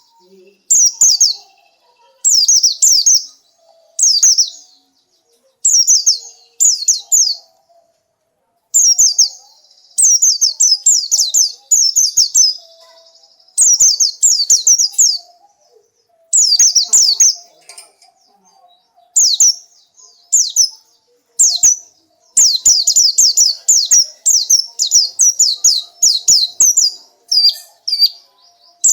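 Pleci (white-eye) singing: repeated short phrases of quick, high, downslurred notes with brief pauses between them, and a longer unbroken run of notes near the end.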